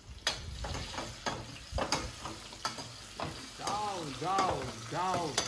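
Stainless-steel ladle stirring onions, garlic, whole spices and chillies frying in oil in a stainless-steel pot: a steady sizzle with the ladle clicking and knocking against the pot, and three short rising-and-falling squeaks near the end.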